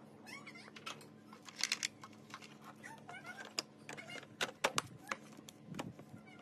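Screwdriver and hands working a plastic tail light housing onto a Jeep Wrangler JK's body: scattered clicks, ticks and small scrapes at an irregular pace, with short high chirping calls in the background.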